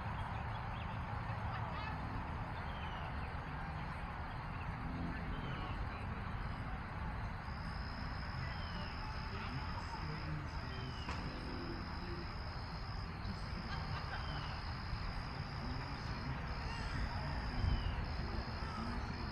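Outdoor ambience of birds calling in short chirps over a steady background hiss, joined about a third of the way in by a high, steady insect trill that breaks off briefly now and then.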